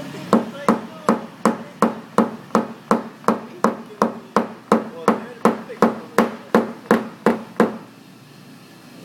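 A hammer tapping steadily, about three light, ringing strikes a second, some twenty in all, then stopping near the end: typical of tapping down the raised crown beside a dent in paintless dent repair.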